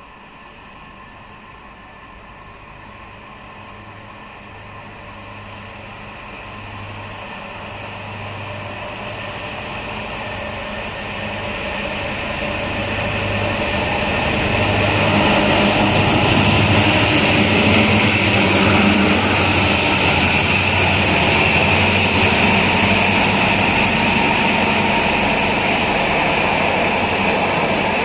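Two TCDD DE 22000-class diesel-electric locomotives hauling a passenger train past. Their diesel engines are heard approaching, growing steadily louder for about fifteen seconds. The locomotives then pass, followed by the coaches rolling by with a steady rail rumble.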